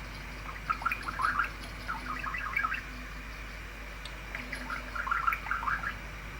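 Budgerigar chattering in three bursts of short, rapid chirps.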